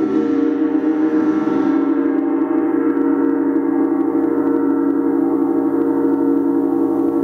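Large Jupiter planetary gong being played in a gong bath: a continuous ring of many overlapping tones, strongest in the low-middle. The highest overtones die away after about two seconds while the deeper tones keep sounding.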